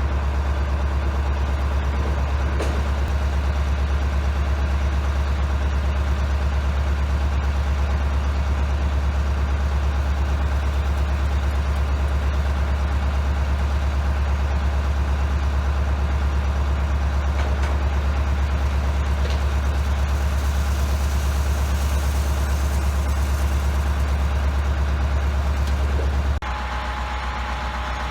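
Farm tractor engine running at a steady idle, an even deep drone that drops abruptly in level near the end.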